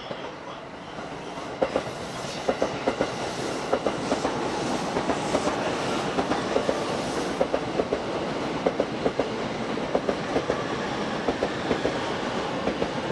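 JR East E233-series electric commuter train running past, its wheels clacking over the rail joints in quick pairs over a steady rolling noise that grows louder in the first couple of seconds.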